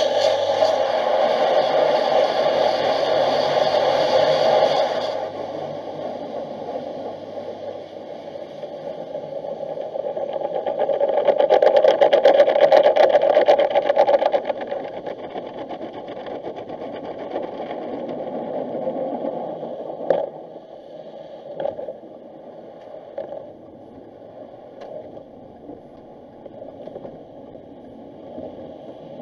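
Automatic tunnel car wash heard from inside the car: water sprayed hard against the windshield and body, loud for the first five seconds, dying down, then swelling again around twelve seconds while soap foam is sprayed on. After that a quieter rumble of the wash equipment with a couple of sharp knocks around twenty seconds in.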